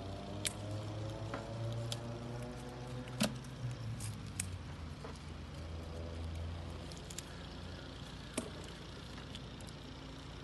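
Sharp snaps of sorrel (roselle) stems being cut with a knife, about seven scattered clicks, over a steady low motor hum.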